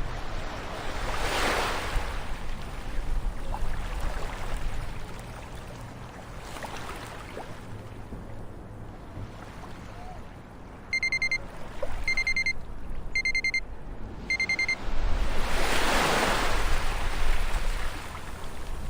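Ocean waves washing and breaking on a shore. About eleven seconds in, a timer alarm goes off over the surf: four quick bursts of rapid high electronic beeps, about a second apart, signalling that the countdown has ended. Another wave swells up right after the beeping.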